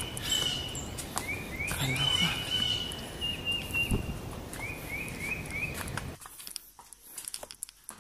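Outdoor wildlife calling: short chirps repeated in quick runs of about four, over a steady high-pitched call, with footsteps on the trail. About six seconds in, the outdoor sound cuts off suddenly, leaving only faint footsteps and scuffs.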